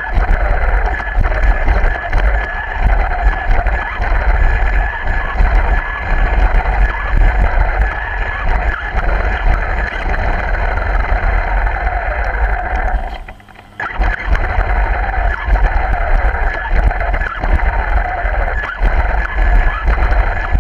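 Radio-controlled car's motor and gears whining as it drives over concrete, the pitch sliding up and down as it speeds up and slows, with a rumble from the wheels. The sound drops away for about half a second roughly two-thirds of the way through.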